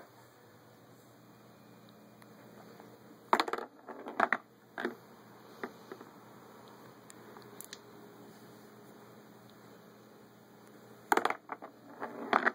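Small balls of a tabletop toy pool table clacking against each other and the rails, and dropping into the pockets, as a cat paws them. The knocks are sharp and irregular, in a loud cluster about three seconds in, a few single ones after, and another cluster near the end, over a steady low hum.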